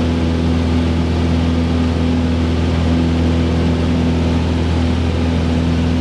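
Cabin sound of a Cessna 172P in flight: the Lycoming O-320 four-cylinder engine and propeller droning steadily under power during the climb-out after takeoff, with steady airflow hiss over the airframe.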